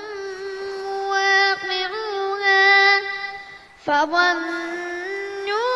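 A young boy reciting the Quran in a melodic chanted style, holding long drawn-out notes with small turns in pitch. The voice breaks off briefly for a breath about four seconds in, then goes on.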